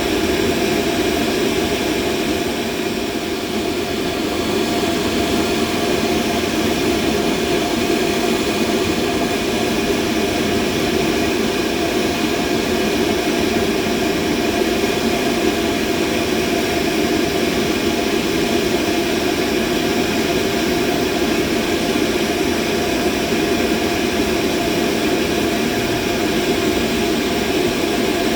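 Steady, unbroken mid-frequency machine noise used as a masking sound: a dense hum and hiss, strongest in a low-middle band, with several faint steady tones layered above it.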